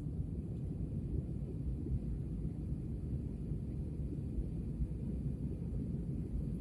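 Steady low rumble of a passenger plane heard from inside the cabin.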